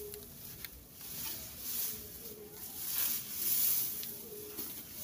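Dry cut grass rustling and crackling in several bursts as it is handled and spread by hand as mulch around young plants.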